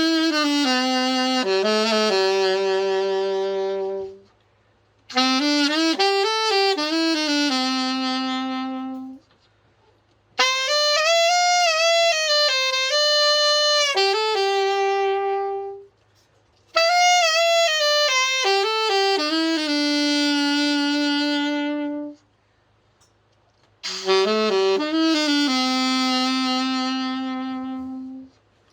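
Selmer Super Action 80 Series II alto saxophone played solo, five short melodic phrases with brief pauses between them, as a play test after its overhaul.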